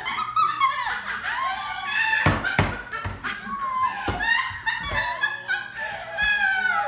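Young women laughing hysterically in high-pitched fits of shrieking laughter, with a few dull thumps in the middle.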